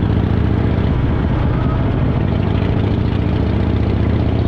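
Harley-Davidson Fat Boy's V-twin engine running steadily while cruising along a winding road.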